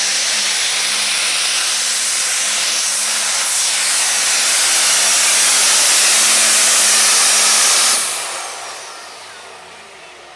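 Multi-turbocharged diesel engine of an International heavy super stock pulling tractor at full throttle under load, a loud, dense high-pitched hiss from the turbos. It cuts off sharply about eight seconds in as the throttle is dropped at the end of the pull, and then dies away.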